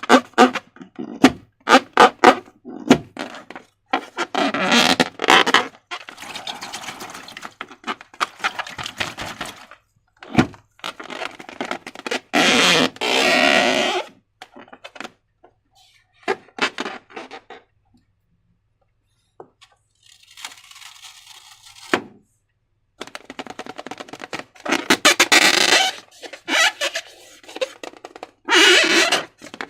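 Slime being squeezed and handled: wet squelching and crackly clicking in uneven bursts, with a short silent pause about halfway through.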